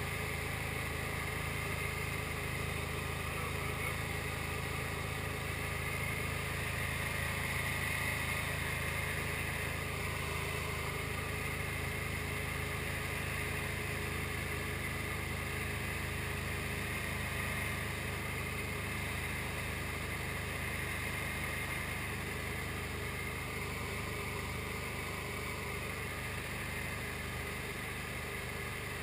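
SD1 Minisport light aircraft's engine and propeller running steadily in flight, an even drone with a hiss over it, a little quieter toward the end.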